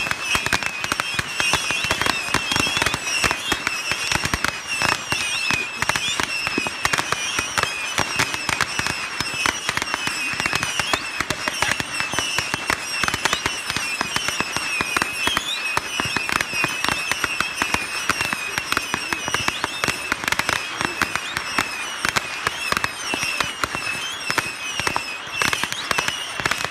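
Firecrackers going off in a dense, continuous rattle of small bangs, many pops a second without a break.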